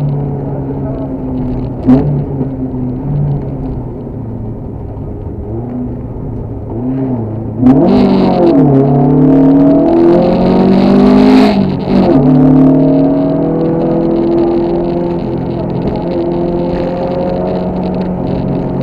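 Škoda 130 LR rally car's rear-mounted 1.3-litre four-cylinder engine under hard driving, heard from inside the cabin. A sharp knock about two seconds in; near eight seconds the engine suddenly gets much louder and its pitch swings steeply up and down for a few seconds as the revs rise and fall through gear changes, then it settles to a steadier pull.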